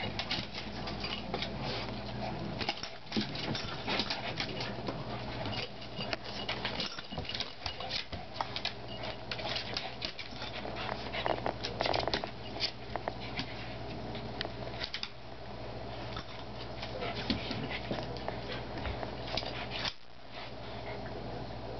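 Two small dogs play-wrestling on a hardwood floor: claws clicking and scrabbling, with growls. The scuffling thins out after about fifteen seconds.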